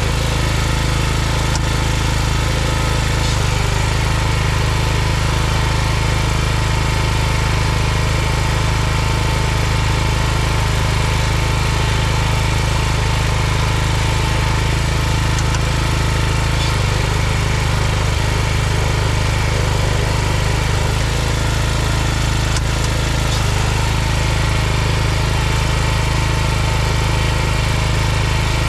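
Riding lawn tractor's small gasoline engine running at a steady speed.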